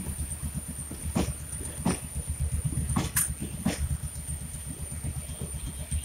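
Passenger train coaches rolling past on the track: a steady low rumble with sharp wheel clacks over rail joints, coming in pairs about two seconds apart.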